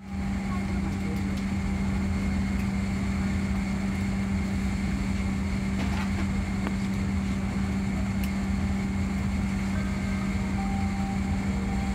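Steady cabin drone inside a Boeing 767-300ER on the ground: an even rush of air with a constant low hum, and a couple of faint clicks midway.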